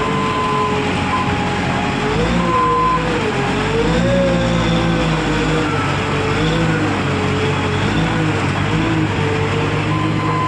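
Skid steer loader engine running under changing load, its pitch rising and falling, with a reversing alarm beeping in short bursts near the start and again near the end.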